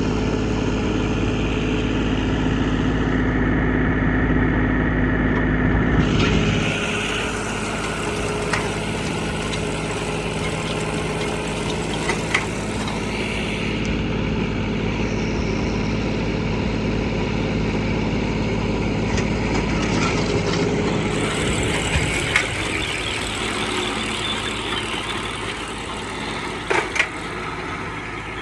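Farm tractor engine running steadily with the baling machinery, its note changing about six seconds in, with a few sharp clicks later on.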